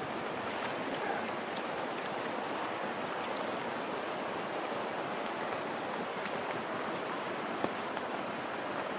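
Steady rushing of the Yarra River in flood, running high and fast; the river is heaving.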